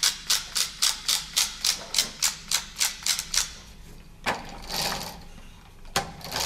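Wooden ratchet pawl of a UGears wooden tram model clicking evenly, about four clicks a second, as the tram's mechanism is wound by hand. The clicking stops about three and a half seconds in, followed by two light knocks of the wooden model being handled.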